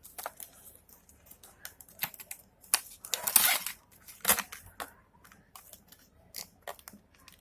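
Cable packaging being opened by hand: irregular sharp clicks and crackles, with a longer rustle about three seconds in.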